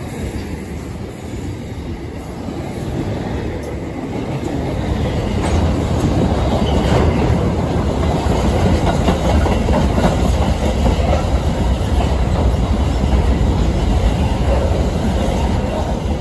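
Freight train wagons, boxcars then container flat wagons, rolling past with wheels clacking over the rail joints. The rumble grows louder over the first few seconds and then holds steady.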